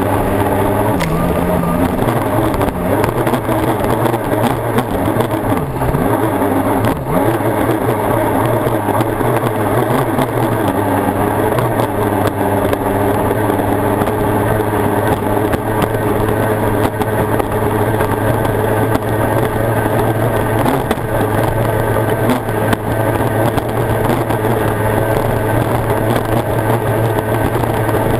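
Yamato two-stroke racing outboard of an OSY-400 tunnel boat running hard at racing speed, heard from on board with water rush and wind across the hull. The engine note wavers for the first several seconds, then holds steady.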